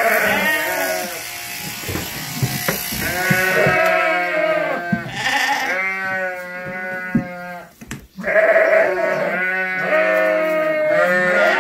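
Sheep bleating repeatedly, a run of long bleats one after another, over the steady hum of an electric sheep-shearing handpiece.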